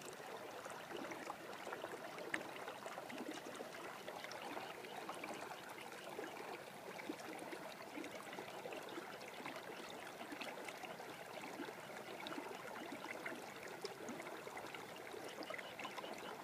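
Shallow water trickling and flowing through a flooded rice paddy: a steady, faint babble dotted with many small ticks.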